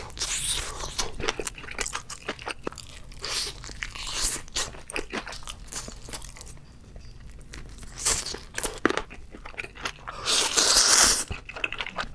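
Close-miked eating: crisp crunching bites and chewing of crunchy food, with a louder, noisier stretch about ten seconds in.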